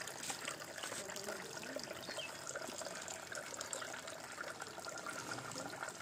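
Water trickling and splashing steadily from the spouts of a bamboo fountain into the water in its wooden-tub basin.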